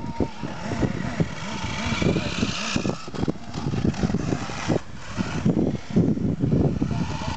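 Radio-controlled model cars racing around a track, their small motors whining as they speed past, with a low irregular rumble of wind on the microphone.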